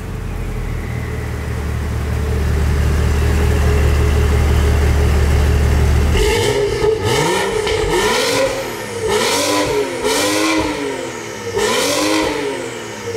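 BMW M235i turbocharged straight-six and exhaust: first a steady low drone that grows slightly louder, then, after an abrupt change about six seconds in, the engine is revved up and back down repeatedly, roughly once a second.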